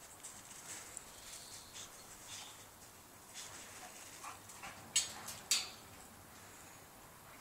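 A boxer's paws crunching softly through snow, then two sharp clanks about five seconds in as it steps onto the open steel treads of a spiral staircase.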